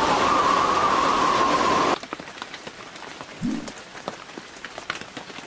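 Heavy rain pouring down, a loud even hiss. About two seconds in it changes to a much quieter sound heard from inside the yacht's cabin: rain running on the windscreen, with separate drops tapping.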